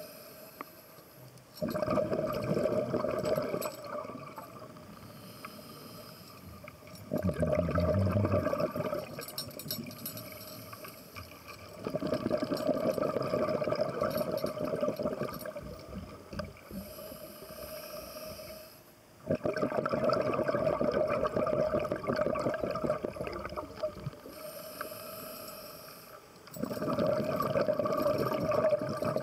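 Scuba diver breathing through a regulator underwater: a quieter hissing inhale, then a longer bubbling rumble of exhaled air, in slow cycles of about five breaths.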